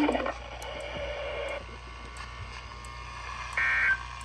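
Weather radio receiver hiss and hum, then about three and a half seconds in a short, loud, buzzy burst of SAME digital data tones: the first End Of Message burst that closes the weather radio's weekly test.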